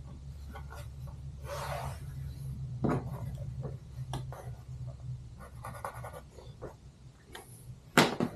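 Paper pattern sheets rustling and sliding on a worktable as they are handled, then a pen scratching marks onto the paper, over a steady low hum. A sharp tap near the end.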